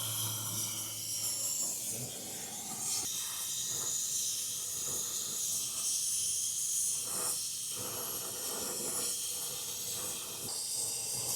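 Flame of a small handheld brazing torch hissing steadily.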